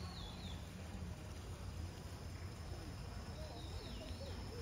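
Background ambience: a steady low hum, with a faint high chirp at the start and again about three and a half seconds in, and faint distant voices near the end.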